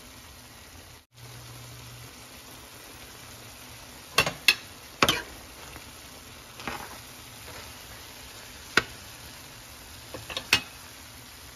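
A pan of fish fillets and shrimp in tomato sauce sizzling steadily, with a scattering of sharp clicks in the second half, the loudest ones near the end.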